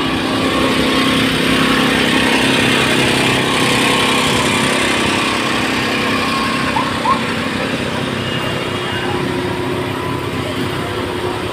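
A motor vehicle's engine running steadily, with a low, even hum, amid road traffic.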